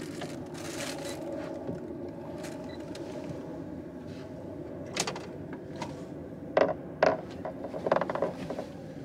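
Boat motor running with a steady low hum, with several sharp clicks and knocks in the second half as a fishing rod and hook rig are handled.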